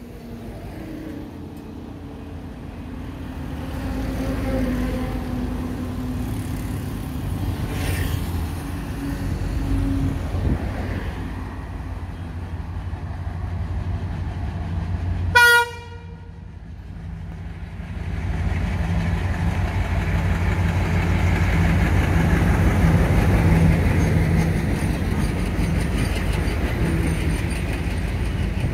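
Twin WDG3A diesel locomotives (ALCO 16-cylinder engines) approaching with a deep, building engine hum. They sound one short horn blast about halfway through, then pass, and the train of flat wagons loaded with concrete sleepers rumbles steadily by.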